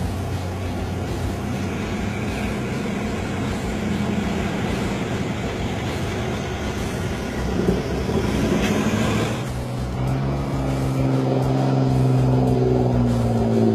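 Off-road 4x4 engines revving hard while driving through a deep, fast river, over the rush and splash of water. About ten seconds in, a steadier engine note with a rising pitch takes over.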